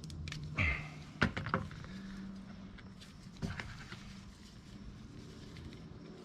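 Light plastic clicks and a brief squeak as the pieces of a Briggs & Stratton plastic carburetor's inner part are pried and popped apart by hand, with two clicks close together about a second in and another a couple of seconds later, over a steady low hum.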